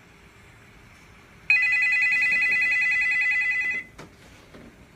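Telephone ringing: one loud, rapidly trilling electronic ring, starting about a second and a half in and lasting a bit over two seconds before it cuts off.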